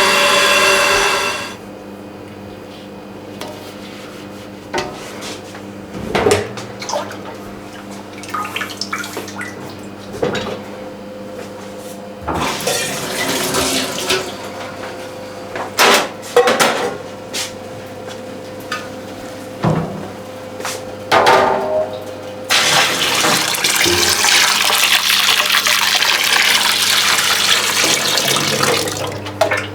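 Pots and utensils knocking and clattering, with water running in short spells and then steadily for the last several seconds, over a faint steady hum.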